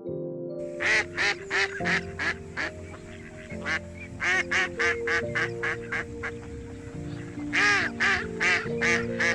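Waterfowl calling in quick series of short calls, a few each second, thinning out in the middle and coming back louder near the end, over steady instrumental background music.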